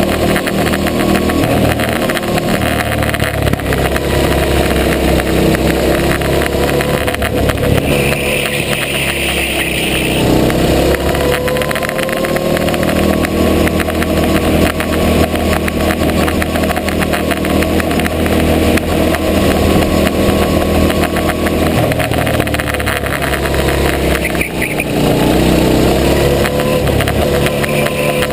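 Go-kart engine running at speed, heard from on board the kart. Its revs dip and climb back up twice, about ten seconds in and again near the end.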